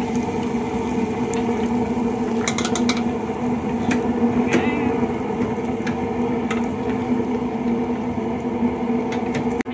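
Wire deep-fryer baskets clinking and rattling on metal as they are lifted out of the hot oil, hung over the fryer and tipped out, a sharp metallic click every second or so. A steady low hum runs beneath.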